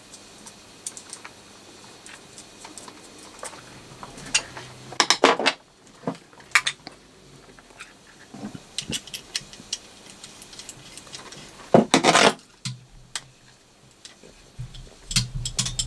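Small metal clicks and clinks of screws and a screwdriver being worked on a Ford Model A distributor's points plate while its points block is unscrewed and refitted, with louder clatters about five and twelve seconds in.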